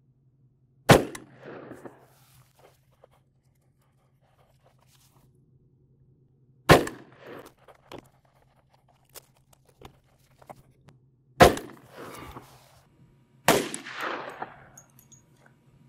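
Four single gunshots from a 10mm TNW Aero Survival pistol-caliber carbine firing Sellier & Bellot 180 gr hollow points, about a second in, near seven seconds, and then two close together near the end. Each shot is sharp and trails off over about a second.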